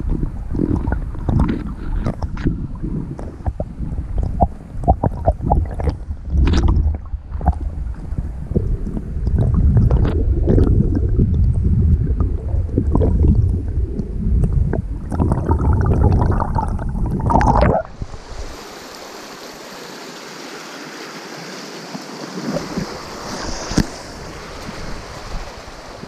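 Creek water heard through a submerged GoPro: a muffled, bass-heavy rush with many small clicks and knocks. About 18 s in, the camera comes out of the water and the sound switches suddenly to the steady hiss of the flowing creek.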